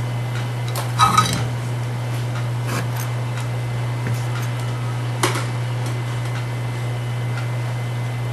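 Small metal tools clinking on a workbench: a ringing clink about a second in, then single sharp ticks near 3 s and just after 5 s, over a steady low hum.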